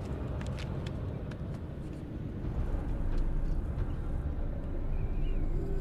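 Wind blowing with a low, steady rumble, swelling slightly midway, with a few faint clicks in the first second and a half.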